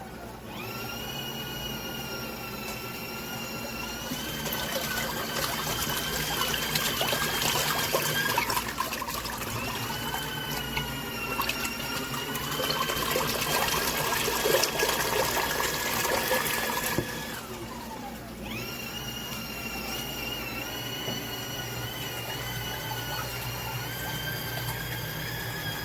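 Portable mini washing machine running: a steady motor whine over water sloshing in the tub. About two-thirds through, the motor winds down with a falling whine, then starts again a second or two later.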